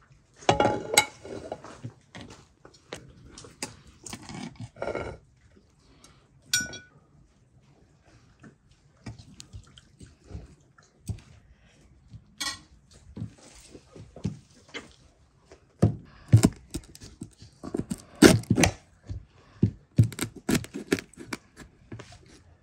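Metal utensils scraping and clinking in a large metal pot of cooked rice pilaf, with scattered knocks of dishes. There is a run of loud scrapes and knocks in the last few seconds as a knife is worked against the bottom of the pot.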